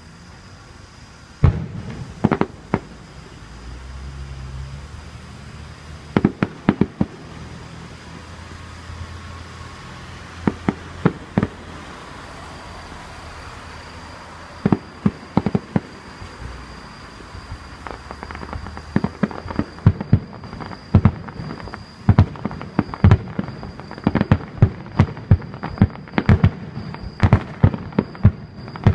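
Fireworks going off: sharp bangs in small scattered clusters, building to a rapid, dense string of bangs over the last ten seconds.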